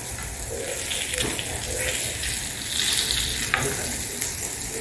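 Flour-dredged skate steaks frying in olive oil and butter in a hot pan, a steady sizzle, with one sharp click about three and a half seconds in.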